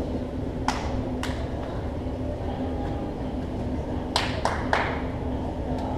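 A few scattered hand claps: two about a second in, then three in quick succession about four seconds in, over the steady hum of a large indoor hall.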